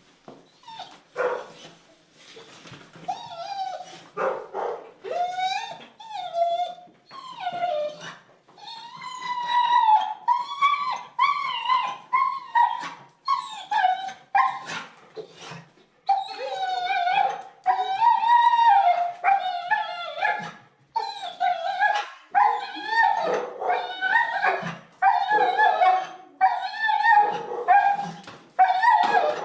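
A dog whining and whimpering: repeated high, wavering whines that come in short runs, sparse at first and nearly continuous over the second half, with a few short sharp clicks in the first seconds.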